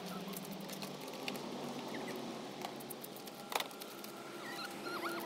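Light scuffing and clicking of footsteps in sandals on loose gravel, with a plastic trash grabber, and one sharp click about three and a half seconds in. Brief high chirps come in near the end.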